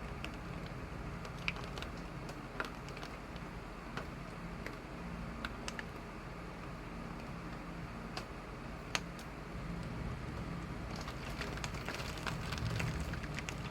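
Rain falling steadily, with scattered drops ticking sharply on a hard surface; the ticks come thicker and the rain a little louder near the end as the shower gets heavier.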